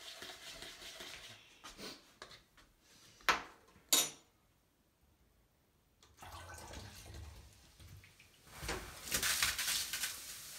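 Two sharp knocks about a second apart, then liquid poured through a funnel into a plastic bottle. Near the end comes a loud hissing gush as the baking soda and vinegar reaction foams up out of the bottle and spills onto the tub.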